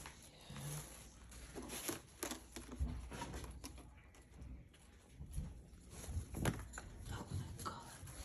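Kittens playing and scrambling about: scattered light taps, scuffs and soft thumps, with a few sharper knocks about two, three and six seconds in.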